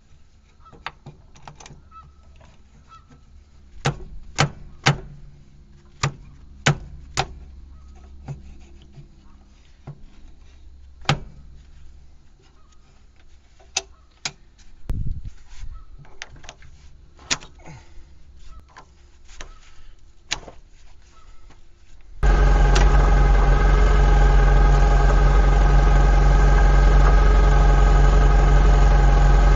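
Sharp metal clicks and knocks as hydraulic hose fittings are handled and pushed into the tractor's rear remote quick couplers. About two-thirds of the way in, the sound switches suddenly to the Kubota tractor's diesel engine running steadily at idle, much louder.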